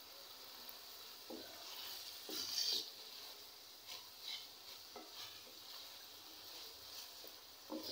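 Diced liver and sliced onions frying in a stainless steel pan, with a steady sizzle. A spatula stirs them, scraping across the pan several times at irregular moments.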